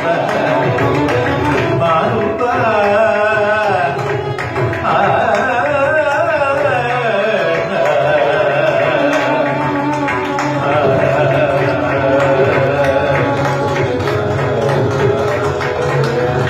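Carnatic classical music performed live: fast, heavily ornamented melodic runs over a steady low drone, with drum accompaniment.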